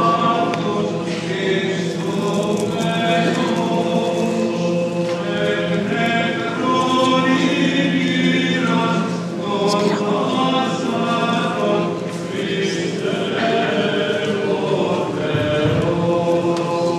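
Choir singing an Orthodox liturgical chant, with the melody moving over a steady held low note.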